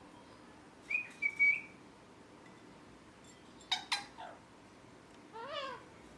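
Pet ringneck parrot calling: a short whistle about a second in, two or three sharp, quick chirps near the middle, and a brief warbling call near the end.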